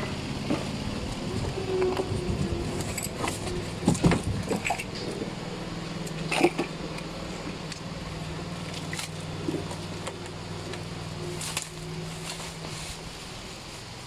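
Plastic wrapping crinkling, with knocks and clicks, as a boxed air compressor is handled on a wooden table and its plastic cover is pulled off. A steady engine hum runs underneath and stops about a second before the end.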